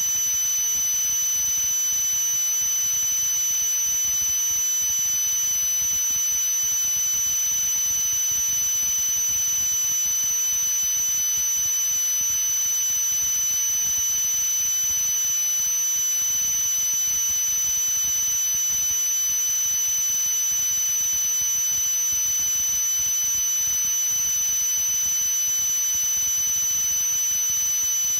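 A steady high-pitched electronic tone over a hiss, unchanging in pitch and loudness throughout.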